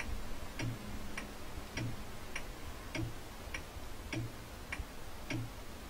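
Clock ticking steadily, a little under two ticks a second, each tick with a soft low knock beneath it: a timer sound counting off thinking time while the missing item is guessed.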